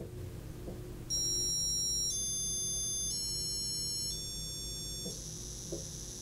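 Code Rocket circuit board's small onboard speaker beeping a sequence of high electronic tones, each held about a second and stepping to a new pitch, four in all, starting about a second in; a fainter steady high tone follows.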